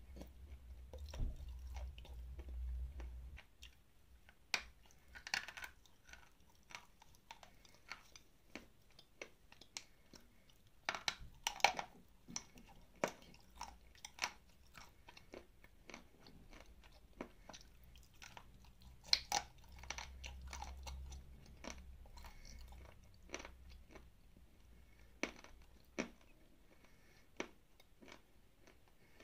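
Crunchy bites and chewing of dry, crumbly edible clay: many sharp, irregular crunches close to the microphone, loudest around the middle, with a low rumble near the start and again later.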